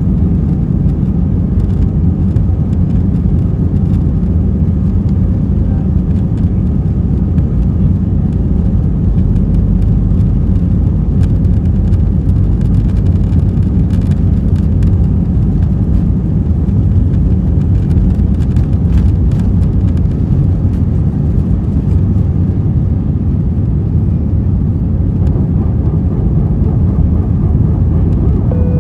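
Airbus A320 cabin noise heard from inside the cabin in flight: a loud, steady low rumble of the engines and airflow.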